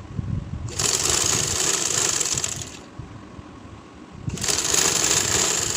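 Sewing machine running as it stitches through cotton fabric, in two runs of about two seconds each with a short pause between them.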